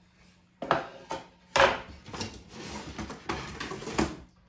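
A thin laser-cut wooden clip frame is set down on a wooden tabletop with a couple of sharp knocks. A louder clatter follows about a second and a half in, then a few seconds of rustling and scraping as hands rummage through a cardboard box of wooden craft pieces.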